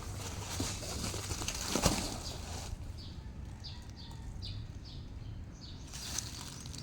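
Rustling with a sharp knock about two seconds in, then a bird calling a quick run of about six short, falling chirps.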